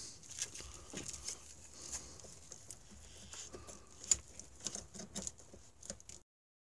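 Faint small clicks, scrapes and rustles of pliers and gloved hands working a spring band hose clamp on a snowmobile's oil pump hose. The sounds end abruptly near the end.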